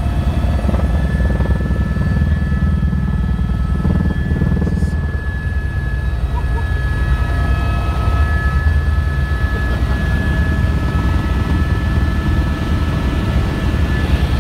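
Helicopter in flight heard from inside the cabin: a steady, loud low rotor drone with rapid pulsing, and a constant high whine over it.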